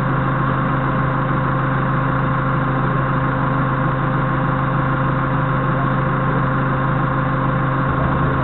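Doosan 4.5-ton forklift's engine idling steadily, a constant low hum with no change in speed.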